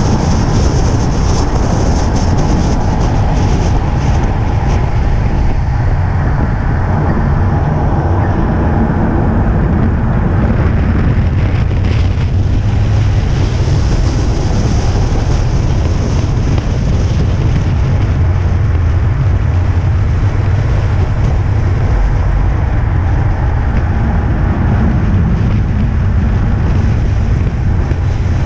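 Car running on a circuit, heard from on board: steady engine drone with road and tyre noise from the wet track.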